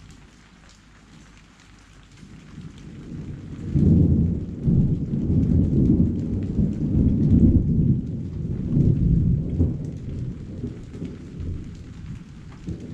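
Rolling thunder that swells a couple of seconds in, rumbles loudly for several seconds and slowly dies away, over a steady hiss of rain.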